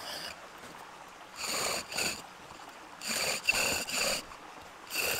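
Bow drill being worked: the bow sawn back and forth, each stroke spinning the wooden spindle in the fireboard notch with a high squeaking whine, in repeated strokes with short quieter gaps as the bow changes direction.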